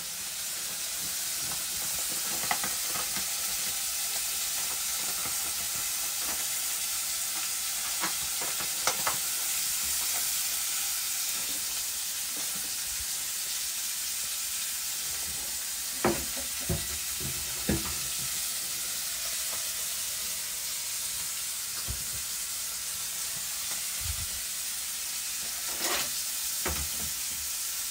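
Food sizzling steadily in a hot pan on a gas stove, with a few light knocks of a utensil against the cookware now and then.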